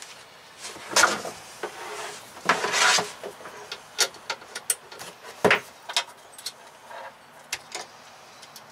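Heavy battery cables with crimped metal lugs being handled and fitted at an inverter inside a plywood box: scattered clicks, knocks and rustles. The louder handling noises come about a second in, around three seconds in, and at five and a half seconds.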